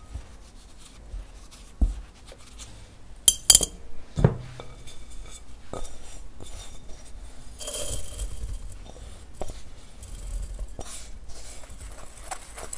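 A wire-mesh strainer clinks against a glass mixing bowl a few times in quick succession, with a short ring. Then comes a soft, high hiss of rice flour pouring into the strainer.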